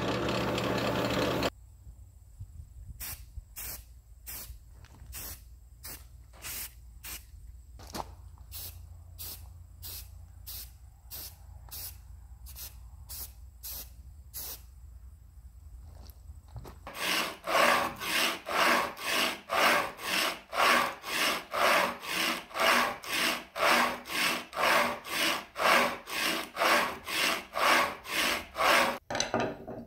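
A spokeshave blade held in a honing guide and rubbed back and forth on a diamond sharpening plate: steady rubbing strokes, a little over two a second, filling the second half. Before that, a drill-press wire wheel runs briefly at the start, then comes a quieter run of short, evenly spaced strokes.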